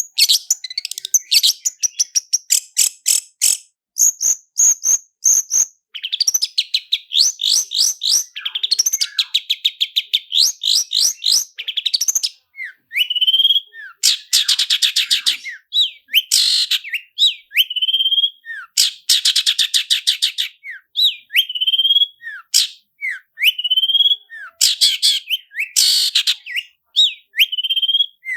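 Long-tailed shrike (cendet) singing a fast, varied song: rapid rattling rolls of quickly repeated notes, broken up by short, sharp whistled notes that glide up and down.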